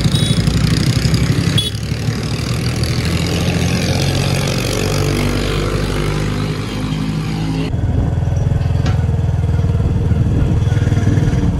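Motorcycle engine running with heavy wind noise on the microphone while riding along a road. About eight seconds in, the sound cuts to a steadier low engine throb.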